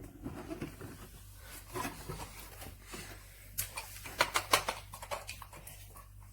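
A run of sharp clicks and knocks from objects being handled, loudest in a quick cluster about four seconds in.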